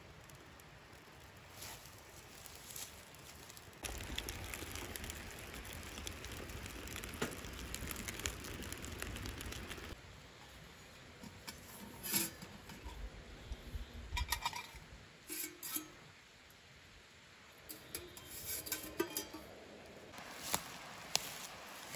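Birch bark catching and crackling in a small titanium wood stove, with a louder stretch of fire and rustling noise. Then footsteps and scattered knocks and clinks from a metal pot being handled, a few with a short metallic ring.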